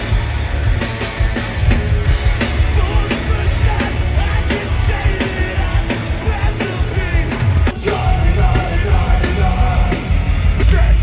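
Loud heavy rock music with a pounding drum beat and yelled vocals.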